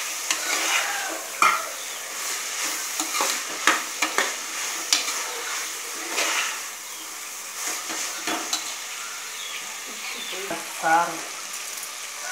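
Metal ladle stirring vegetables sautéing in hot oil in an aluminium pressure cooker: a steady sizzle with irregular scrapes and clinks of the ladle against the pot.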